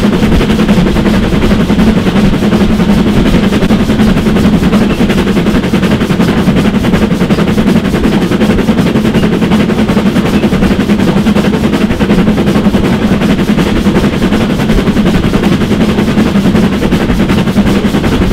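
Steam locomotive L.150 (GWR 5521) banking a goods train, its exhaust beating rapidly and steadily as it works hard, heard close up.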